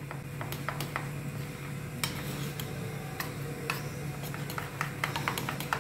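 Steel spoon stirring a thin maida-and-water paste in a small stainless steel bowl, with irregular light clinks and scrapes of metal on metal.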